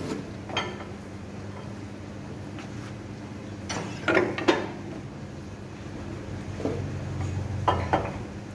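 Metal clanks and knocks from hands working at the base of a vertical electric motor on a stainless-steel mixer housing. The loudest pair comes about four seconds in and another pair near the end, over a steady low hum.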